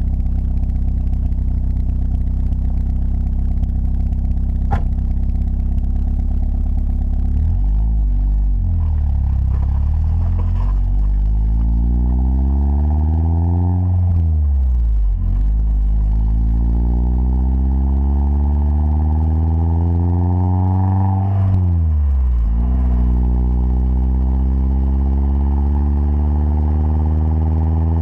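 Opel Calibra Turbo's turbocharged four-cylinder engine heard through an aftermarket universal exhaust silencer: running steadily at first, then accelerating with the pitch climbing. The note drops at two gear changes, about 15 and 22 seconds in, before rising again.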